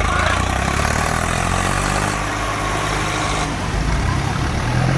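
Diesel tractor engines running under load. A broad rushing noise rides over them and cuts off about three and a half seconds in.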